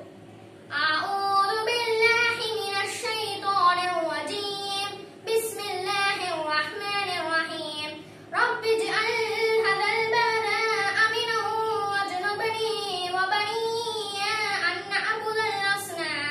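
A boy's voice chanting a recitation in a melodic, drawn-out style, with long held notes. It pauses briefly for breath about half a second in, around five seconds and around eight seconds in.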